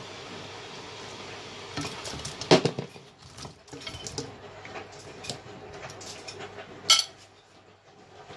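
Kitchen tongs and a serving bowl knocking and clinking against a cooking pot as fried turkey pieces are tipped into the stew. The knocks are scattered, with the sharpest about two and a half seconds in and again near seven seconds.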